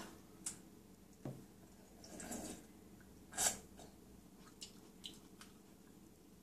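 Sipping and slurping ramen broth from a glass bowl: a few short sips and swallows, the loudest about three and a half seconds in, with a few small clicks after it.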